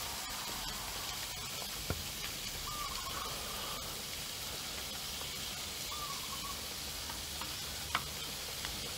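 Meat sizzling steadily on a domed tabletop grill pan, with a couple of light clicks about two seconds in and near the end. Two faint short whistled notes sound in the background.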